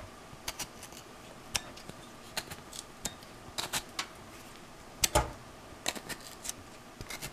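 A fork's tines stabbing into a raw russet potato, making a series of irregular sharp clicks a few a second, the loudest about five seconds in.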